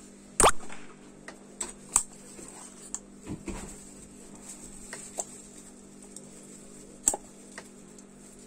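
Hand work on a leather cover for a car armrest: scattered sharp clicks and snips of scissors and handling, the loudest about half a second in, over a steady low hum.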